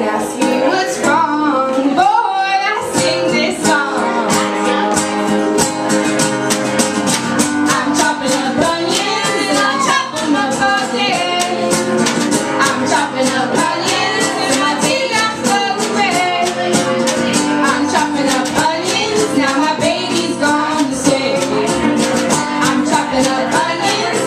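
Live acoustic folk song: an acoustic guitar strummed, a banjo drum struck with sticks in a steady beat, and women singing.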